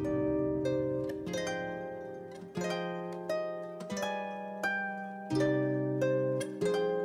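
Instrumental music of plucked-string notes. Each note or chord starts sharply and rings away, a new one about every half second to a second, over lower sustained bass notes.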